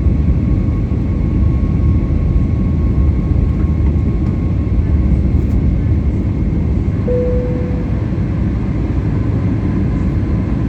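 Steady low rumble inside the cabin of an Airbus A320neo on the ground after landing, with a faint steady whine from the engines and air systems. There is a short single tone about seven seconds in.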